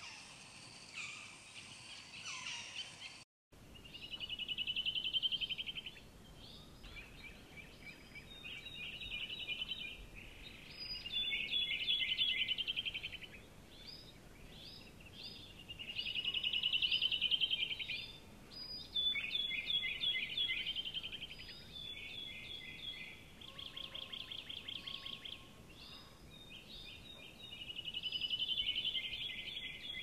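Songbirds singing: fast trilled phrases of one to three seconds each, repeated every few seconds over a steady background hiss, with a brief break about three seconds in.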